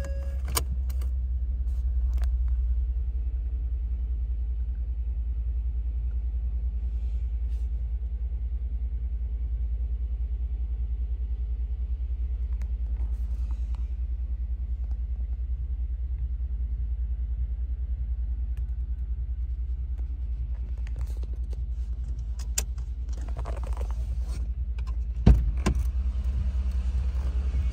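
A 2013 Ford F-150's 5.0L V8 idling, heard from inside the cab as a steady low rumble. Near the end there are two short clicks, the second one sharper.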